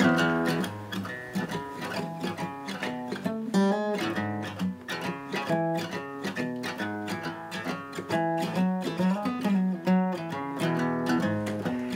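Background music on acoustic guitar: a steady run of picked notes.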